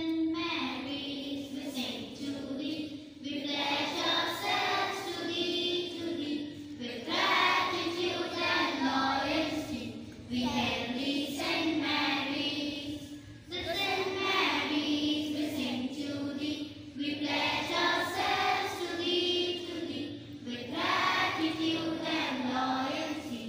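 A group of schoolchildren singing the school anthem together, in phrases with short breaths between them.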